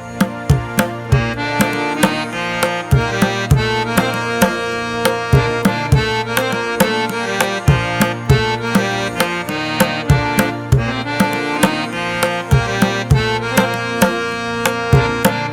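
Background music with tabla-like hand drums beating a quick, steady rhythm under sustained melodic instruments.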